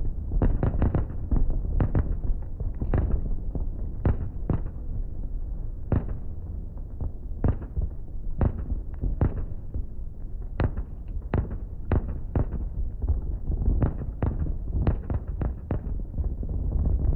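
Aerial fireworks display: a steady run of sharp bangs from bursting shells, about one or two a second at irregular spacing, over a continuous low rumble.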